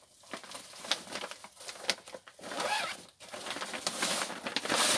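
Clear plastic packaging bag rustling and crinkling in irregular bursts, with a few sharp clicks, as an inflatable life jacket is opened and pulled out of it. Louder near the end.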